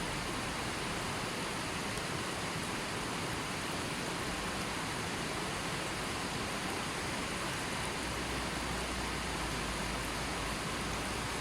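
River water flowing steadily, a constant even rush with no birds or other sounds.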